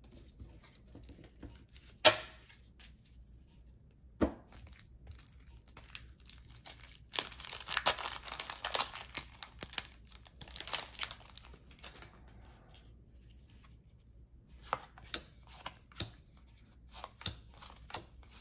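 Cellophane wrapper of a trading-card pack being torn open and crinkled, a dense spell of crackling lasting several seconds in the middle. A couple of sharp clicks come before it and scattered light clicks near the end.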